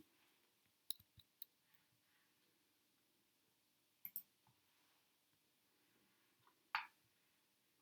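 Near silence with a few faint clicks: a small cluster about a second in, two more around four seconds, and a single one near the end.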